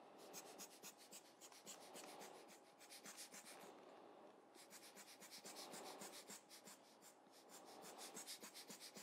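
Faint, quick puffs of air, several a second, from a hand-squeezed rubber bulb air blower (a Giotto lens-cleaner type) blowing the wet alcohol ink. They pause for about a second near the middle, then start again.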